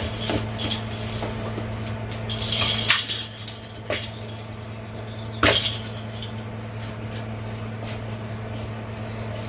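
A few light knocks and clatters of a small plastic basket on a wooden floor as it is set down and nudged by a dog, the loudest about three and five and a half seconds in, over a steady low hum.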